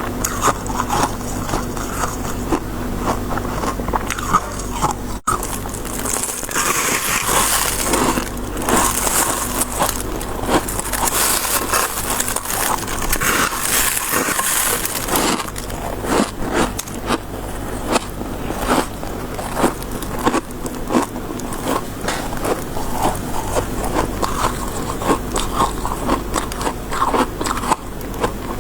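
Close-up biting and chewing of soft, snow-like freezer-frost ice: a dense, continuous run of crisp crunches and crackles, at its crunchiest and hissiest from about six to fifteen seconds in.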